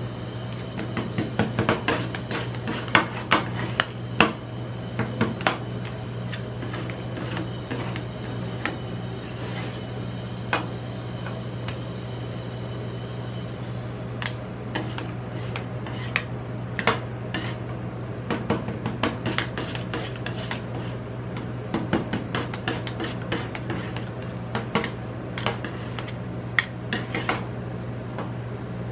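Metal spatulas tapping, chopping and scraping on the steel freezing plate of a rolled-ice-cream station, mixing and spreading the grape soda ice cream. Many sharp taps and scrapes, loudest in the first few seconds, over a steady low hum.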